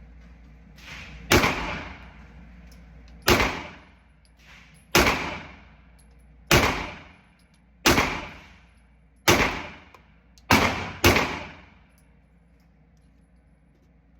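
Pistol fired eight times at an unhurried pace, about a second and a half between shots, the last two close together. Each shot is a sharp crack with a short echoing tail.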